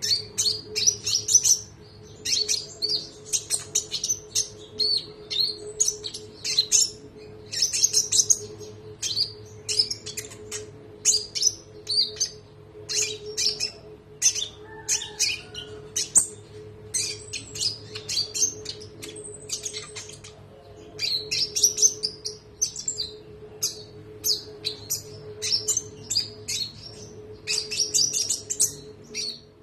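Konin songbird singing nonstop: rapid runs of sharp, high chirps and trills in quick bursts with brief pauses between phrases. A faint steady hum sits beneath the song.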